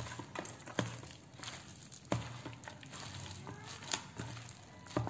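A hand squishing and kneading thick ground raw-jackfruit paste with chopped onion and chilli in a steel bowl: soft, wet squelching broken by a few sharp clicks.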